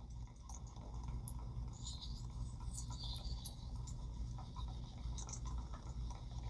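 Faint light clicks and scrapes of a baitcasting reel being handled, over a steady low hum.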